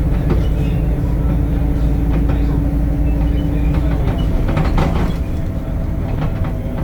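Temsa Avenue LF 12 city bus under way, heard from inside: the DAF diesel engine and ZF automatic gearbox run with a low rumble and a steady droning tone. The tone changes about four seconds in and the rumble eases a second later, with a few rattles in between.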